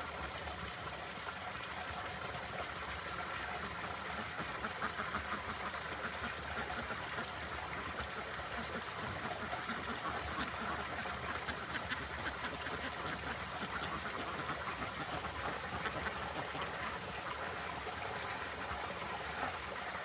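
Steady trickling water, with a flock of domestic ducks and their faint calls mixed in; small scattered ticks pick up a few seconds in.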